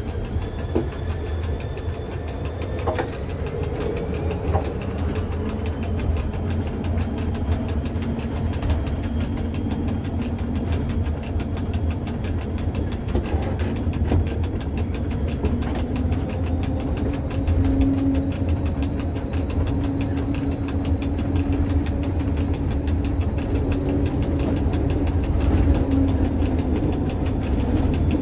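Electric cogwheel railcar of the Pilatus rack railway running along the track, heard from its cab: a steady low rumble with a held motor-and-gear whine and a fast, continuous clatter from the cog gearing on the rack.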